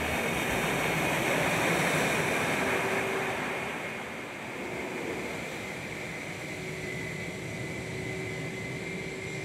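Aircraft engines running on the airport tarmac: a steady rushing with a faint high whine. It is louder for the first few seconds, then eases to a lower, even level.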